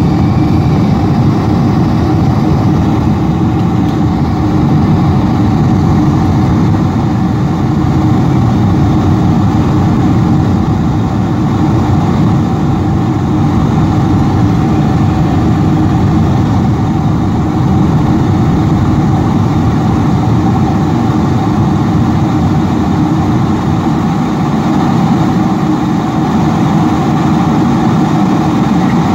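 Cabin noise inside a Boeing 747-400 in flight: a steady, loud wash of engine and airflow noise, heaviest in the low end, with faint steady hums in it.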